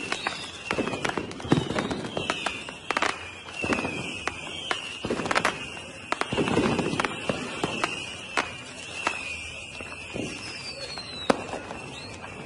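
Aerial fireworks display: shells bursting with irregular sharp bangs and crackles, several much louder than the rest, over a high wavering whistle.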